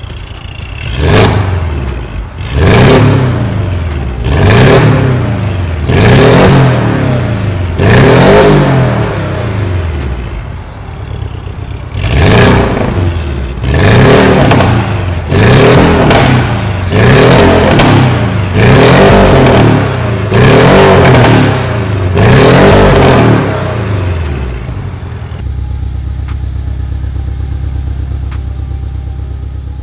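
Porsche 718 Cayman GTS 2.5's turbocharged flat-four free-revving while parked, through an iPE valved exhaust with its valves open: about a dozen quick rev blips, each climbing and dropping back, in two runs with a short pause between. Near the end it settles to a steady idle.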